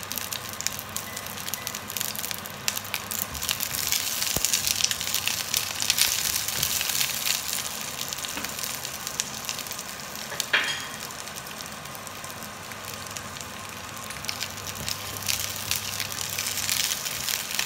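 Shallots, garlic, candlenuts and shrimp paste (terasi) sizzling and crackling in a little oil in a ceramic frying pan. The sizzle is loudest a few seconds in, and a sharp pop comes about ten seconds in. Near the end a silicone spatula stirs the pieces in the pan.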